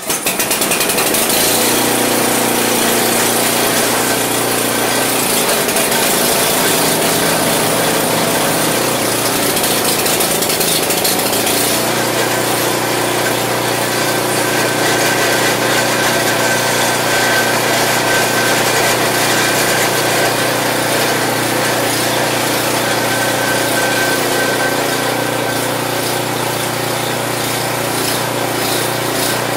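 Craftsman 827 snow blower's 8 hp Briggs & Stratton engine catching on a pull of the recoil starter, then running steadily as it warms up; its note shifts slightly about twelve seconds in.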